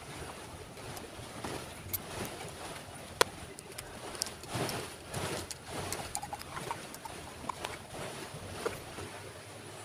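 Screwdriver turning out the float-bowl screws of a 15 hp outboard motor's carburetor: scattered metal clicks and short scrapes, with one sharp click about three seconds in, over steady background noise.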